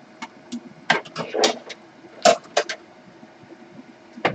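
Small plastic toy pieces and a plastic toy vending machine being handled: a scatter of sharp clicks and taps, several in the first half and one more near the end.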